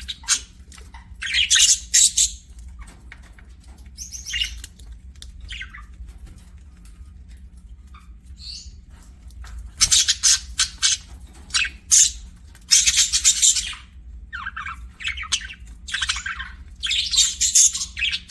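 Budgerigars chirping and chattering in harsh, high bursts, with a quieter stretch in the middle.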